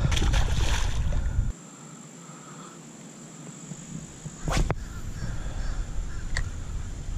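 A peacock bass splashes into the lake as it is released, over heavy wind rumble on the microphone. After the wind noise drops away abruptly, there is a single sharp click past the middle and a fainter one near the end.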